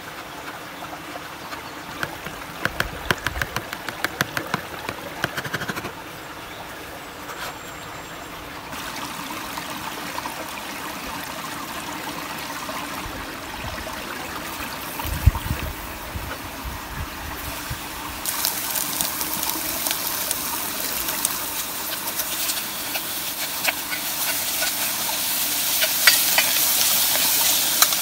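A knife chops vegetables on a cutting board in a quick run of taps a few seconds in, over a steady flowing stream. There is a low thump about fifteen seconds in. From about eighteen seconds a louder hiss builds as the chopped onion and meat fry in a steel pot on a camp gas stove, with a few clinks of the spoon near the end.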